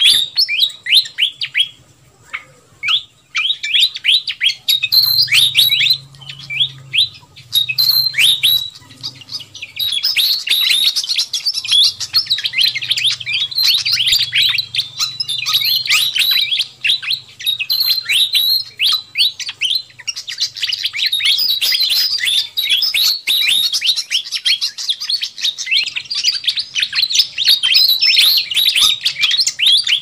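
Malaysian pied fantail calling in a busy, agitated chatter: rapid short notes, each sweeping downward, several a second with only brief pauses. It is a lure call used to draw in wild fantails.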